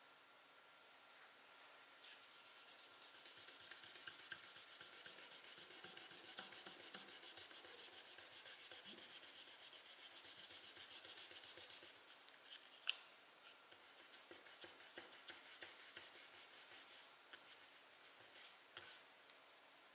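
A drawing tool scribbling on paper: fast back-and-forth shading strokes, about four to five a second, for about ten seconds. It stops with a single sharp tap, and a second, lighter bout of strokes follows.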